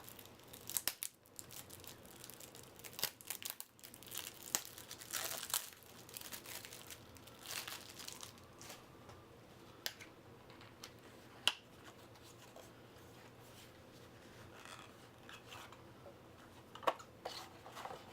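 Packaging of a trading-card deck being torn open and crinkled by hand: irregular crackles and snaps, busiest over the first half, then a few isolated clicks.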